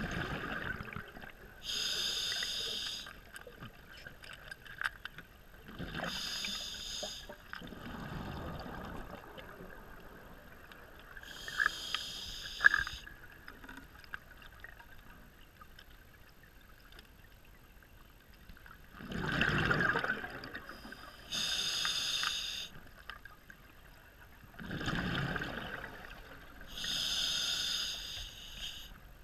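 Scuba diver breathing through a regulator underwater: short hissing inhalations through the demand valve alternate with bursts of rumbling exhaust bubbles, in a slow cycle with a longer pause about halfway through.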